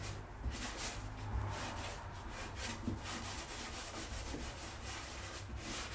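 Foam brush scrubbing encaustic wax paint across a wooden panel in quick repeated back-and-forth strokes, a soft rubbing hiss with each stroke.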